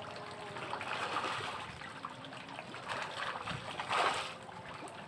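Farmed fish splashing at the water surface of a floating net cage as feed is scattered to them, in several swells with the loudest splash about four seconds in.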